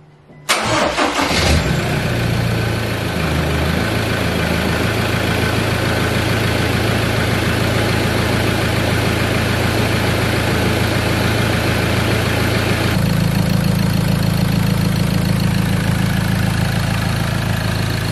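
Turbocharged Ford Ranger engine starting about half a second in, catching at once and settling from a higher idle into a steady idle within a few seconds. It is the first start after refitting a ported exhaust manifold and turbo, and it runs without any exhaust leak.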